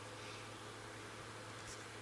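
Faint room tone: a steady hiss with a low electrical hum, and one faint tick near the end.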